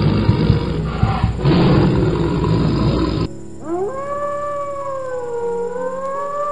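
Animal calls: a rough, noisy roar for about three seconds that stops abruptly, then a single long howling call that rises at its start and holds.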